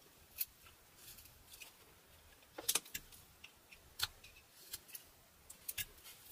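Carving knife slicing into a block of butternut wood: a series of short, crisp cuts as chips pop off, the loudest a quick run of cuts about two and a half seconds in.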